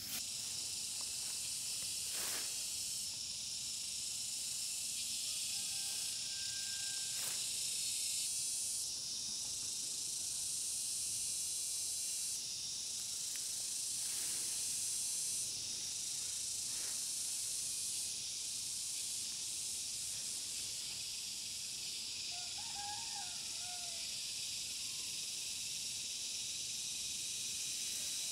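Steady shrill chorus of insects, a high hiss that steps up and down in level every few seconds. A few faint short chirps come about six seconds in and again near the end, with occasional faint rustles.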